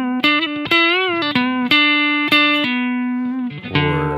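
Telecaster electric guitar played through a HyperGravity compressor pedal: a short single-note lick of picked notes with a bend up and back, then a long held note ringing out, and a new lower note picked near the end.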